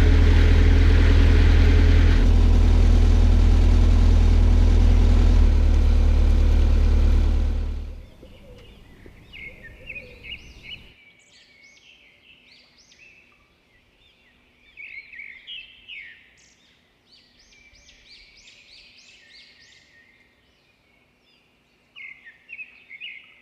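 A loud, steady low drone that fades out about eight seconds in, followed by small birds chirping and singing.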